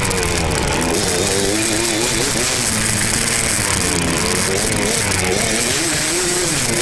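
Yamaha YZ two-stroke dirt bike engine being ridden, its pitch rising and falling repeatedly as the throttle opens and closes.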